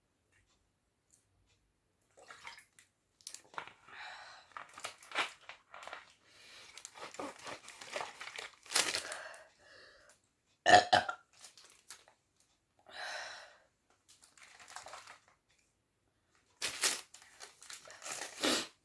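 A woman burping several times, bringing up gas from carbonated cola. The loudest burp comes about eleven seconds in and two more come near the end, with quieter short noises in between.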